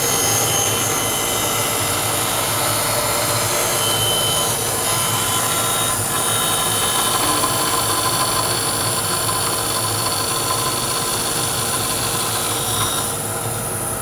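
Laguna 14BX bandsaw with a coarse carbide blade resawing a board of dried old oak: a steady cutting noise with a high hiss as the piece is fed through. About a second before the end the hiss drops off as the cut finishes, and the saw keeps running.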